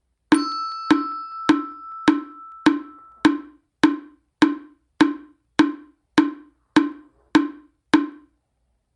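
Hollow wooden knocks in a slow, steady beat, about fourteen strokes a little over half a second apart, each dying away quickly. A ringing, bell-like tone sounds with the first knocks and fades out after about three seconds.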